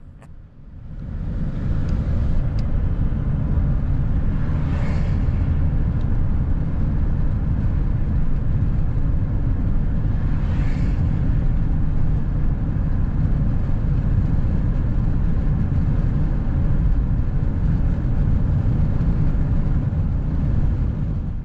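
Steady low rumble of road and engine noise from a vehicle driving down a highway, building up about a second in as it gets under way. Twice a brief rising and falling hiss sweeps past, like oncoming vehicles going by.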